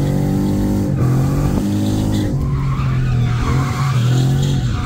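A car drifting: its engine runs at high, steady revs while the tyres squeal. The engine note dips briefly a little over two seconds in, then picks straight back up.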